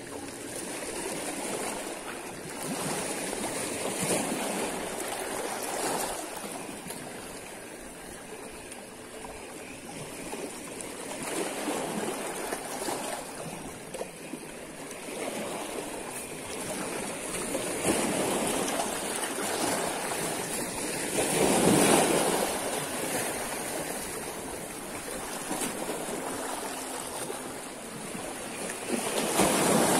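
Small sea waves lapping and washing against a stone jetty, swelling and fading every few seconds, loudest about two-thirds of the way through and again near the end.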